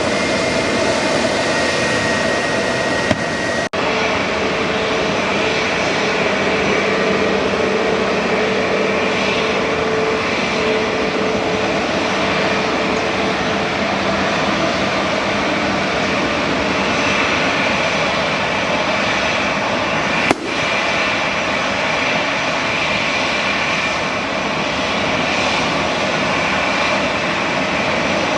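Boeing 737 MAX 8 jet engines (CFM LEAP-1B turbofans) running loud and steady, a dense rush with a few held whining tones. There are two sharp clicks, about 4 and 20 seconds in.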